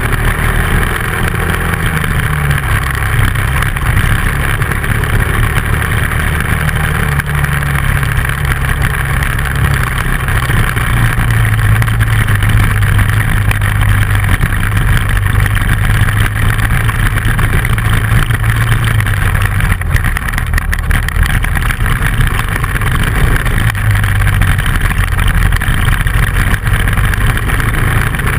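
Dual-sport motorcycle engine running under way on a gravel road, its note shifting up and down a few times with throttle and gears, over a steady rushing noise.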